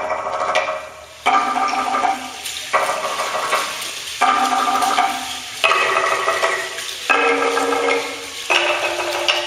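Performance music played in repeated phrases that each start sharply, about every second and a half. Each phrase holds a chord of several steady pitches over a hissing, rattle-like shaking.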